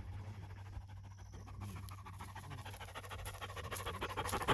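A West Siberian Laika hunting dog panting quickly and close up, over a steady low rumble.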